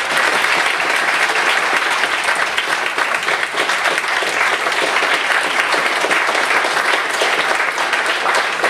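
Audience applauding, a steady, dense clapping that holds throughout.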